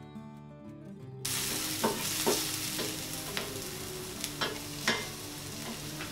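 Guitar music for about a second, then diced vegetables sizzling in oil in a stainless steel pan, with a wooden spatula stirring them and knocking against the pan about six times.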